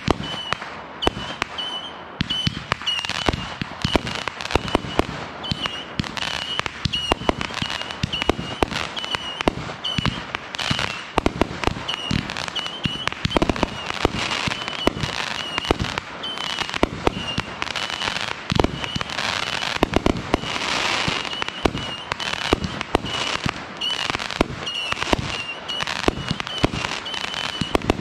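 Multi-shot aerial firework cake firing a rapid, irregular series of shots, sharp launch thumps and bursting pops coming several a second. A steady high-pitched tone runs underneath.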